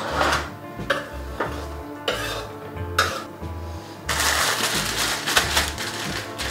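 Kitchen handling sounds: knocks and scrapes as chopped sweet potato chunks are tipped off a wooden chopping board into a dish, then a plastic bag of frozen mixed vegetables rustling about four seconds in. Background music with a steady beat plays under it.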